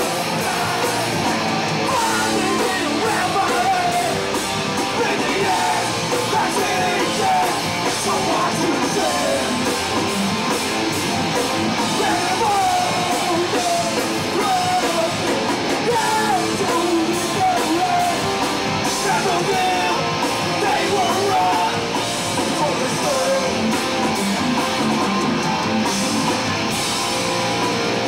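Hardcore punk band playing loud and fast live: distorted electric guitars, bass guitar and a drum kit, with vocals mixed in.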